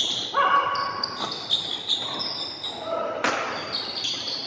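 Badminton rally: sharp racket strikes on the shuttlecock, one near the start and one about three seconds in, among short high squeaks of players' shoes on the court floor.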